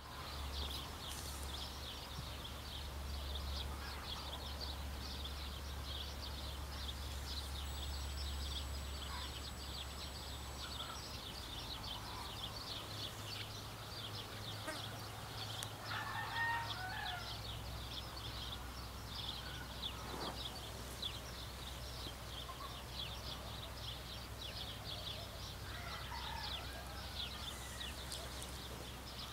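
Outdoor ambience: a dense, steady, high-pitched chirping chorus, with a louder fowl call about sixteen seconds in and another near twenty-six seconds, over a low steady hum.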